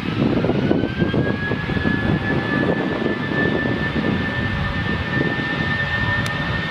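Airbus A319-100 airliner on its takeoff roll, its twin jet engines at takeoff power: a steady low rumble under a high engine whine that rises in pitch during the first second and then holds steady.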